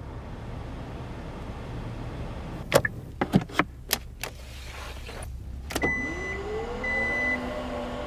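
A few sharp clicks of cabin controls. Then a click and the whirring of the Kia Stinger's power liftback motor, rising in pitch as it starts and then holding steady, with two short high warning beeps over it.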